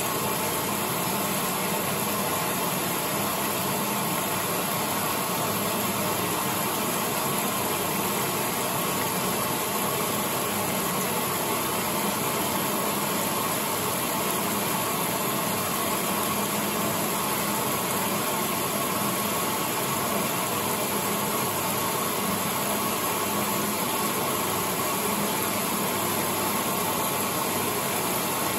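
Late-1970s Maytag A806 top-loading washer running through a large load of sheets: a steady, unbroken wash of noise with a low machine hum underneath.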